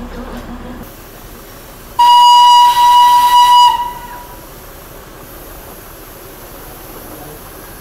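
A Darjeeling Himalayan Railway steam locomotive's whistle blown once, about two seconds in: a single steady shrill note lasting about a second and a half, over the steady noise of the passing engine.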